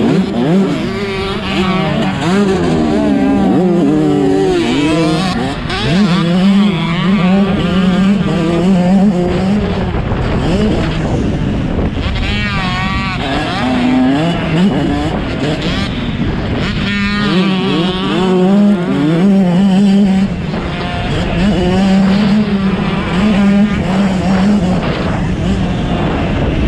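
Two-stroke 125cc motocross bikes racing around the track, several engines revving up and down together as the riders work the throttle, with pitches rising and falling throughout.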